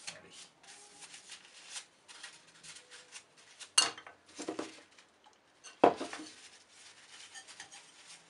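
A cloth rubbing oil into a wooden letter opener, soft and intermittent, with two sharp knocks about four and six seconds in.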